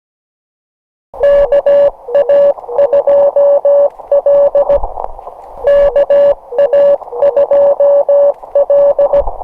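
Morse code (CW) from a ham radio transceiver: a steady mid-pitched tone keyed in dots and dashes over receiver hiss. It starts about a second in, and the same short sequence is sent twice.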